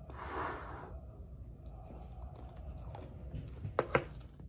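Eating sounds from a spoonful of blue smoothie bowl with granola: a breathy exhale at the start, then quiet chewing, and a couple of sharp spoon clicks about four seconds in.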